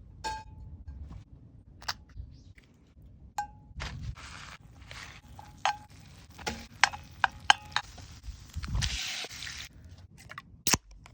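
Cooking sounds: metal utensils and cookware clinking and knocking in a series of sharp clicks, several ringing briefly, with a short hiss lasting about a second near the end.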